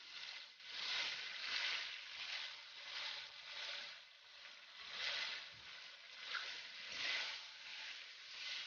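Raw chicken pieces sizzling in hot oil in a wok, the hissing frying sound swelling and easing in uneven waves.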